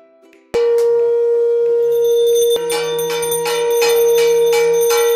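Conch shell (shankh) blown in one long, steady note that starts suddenly about half a second in, with a brass hand bell (ghanta) rung repeatedly alongside it from about two seconds in, about three strokes a second: the conch and bell sounded in Hindu puja worship.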